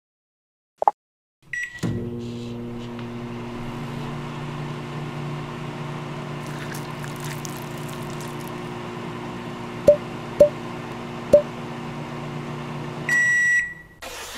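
Microwave oven running with a steady hum for about eleven seconds, started with a click and a short beep. Three sharp ticks come near the end, then a beep of about half a second as it finishes.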